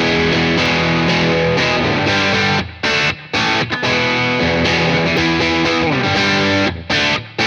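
Fender Stratocaster with Custom Shop Fat 50's single-coil pickups, played on its bridge pickup through an overdriven Bogner Shiva valve amp with EL34 tubes. It plays distorted rock chords, and the sound cuts out briefly between phrases a few times.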